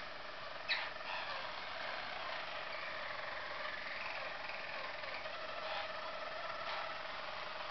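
Harzer Roller canary singing its low, continuous rolling song, a steady trembling trill, with a brief sharper sound under a second in.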